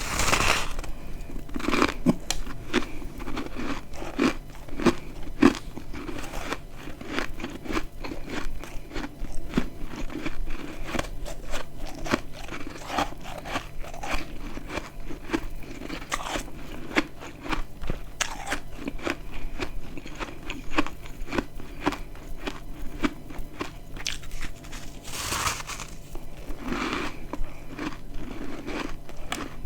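Chunks of dry, crispy freezer frost being bitten and chewed close to the microphone: a loud crunching bite at the start and another about 25 seconds in, with steady crackly crunching of chewing in between.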